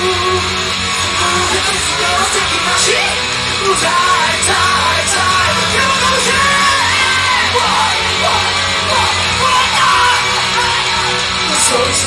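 Live band music: a singer's voice over guitar with a steady low bass, played in a hall.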